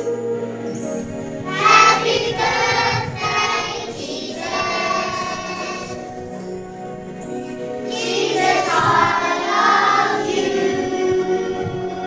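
A group of children singing a song together over backing music, in held, sung phrases that swell louder twice.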